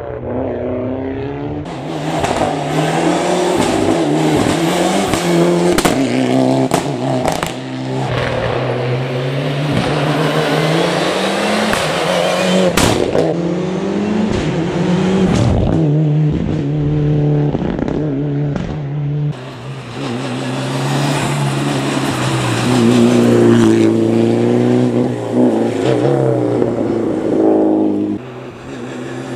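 Mitsubishi Lancer hill-climb race car's engine revving hard through the gears. Its pitch climbs and drops back again and again at each shift, with a few sharp cracks along the way.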